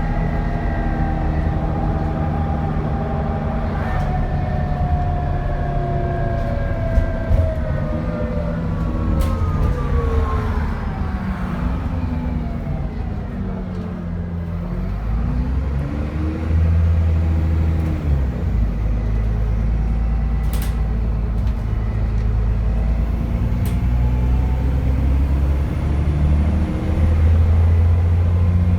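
Dennis Trident 2 double-decker bus's diesel engine and turbocharger running under way. The engine note and a higher turbo whistle fall together over the first dozen seconds as the bus eases off, then the engine revs up and drops back a couple of times, over a steady low rumble.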